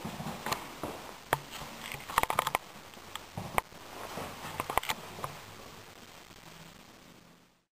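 Footsteps on a wooden floor and a handful of sharp clicks and knocks, among them a quick rattling run of clicks, as a wooden interior door's handle and latch are worked and the door opened; the sound fades out near the end.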